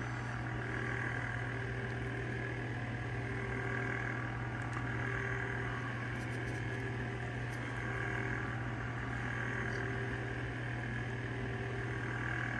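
A steady low hum, with faint higher tones swelling and fading every few seconds over it.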